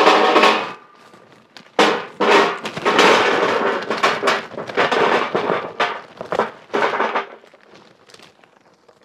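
Large charcoal briquettes poured into a thick stainless steel charcoal basket, clattering and knocking against the metal and each other. A hit at the very start rings briefly, then a dense run of clatter follows and thins out near the end.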